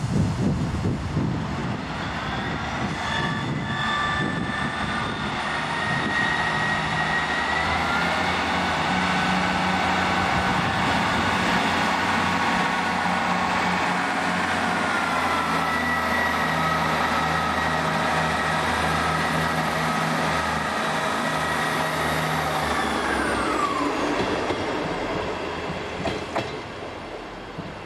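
Class 159 diesel multiple unit passing and drawing away on its underfloor diesel engines, with the engine note rising as it accelerates and then falling away as it recedes.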